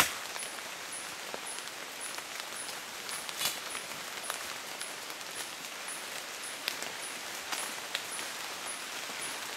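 Forest ambience: a steady hiss with a short, high chirp repeating about twice a second, and a few scattered sharp snaps.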